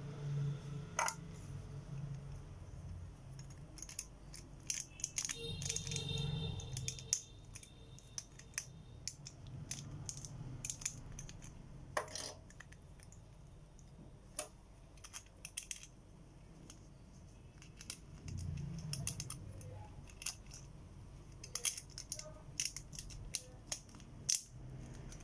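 Irregular small plastic clicks and clatter as a Takara Tomy B-48 Xeno Xcalibur Beyblade Burst top is snapped together and handled. The clicks come in bunches, about five seconds in and again near the end.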